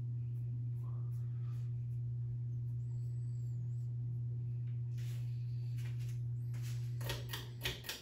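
A 52-inch ceiling fan's motor running at speed with a steady low hum. Near the end come a few clicks and rustles as a hand reaches up to the fan's pull chain.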